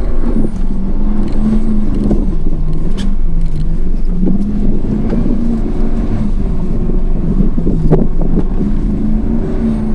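Dodge Ram's Hemi V8 at full throttle climbing a steep snowy hill, engine pitch wavering up and down, with a couple of sharp knocks about three and eight seconds in.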